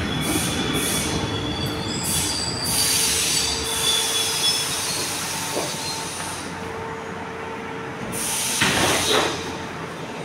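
Milan Metro Line 1 refurbished train running into the station and braking to a stop, with thin wheel and brake squeals over the rumble. A rush of air near the end as the doors open.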